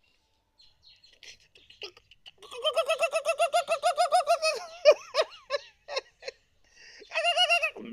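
A high-pitched voice giggling in rapid pulses, about ten a second: one long burst a few seconds in and a shorter one near the end, with short broken sounds between.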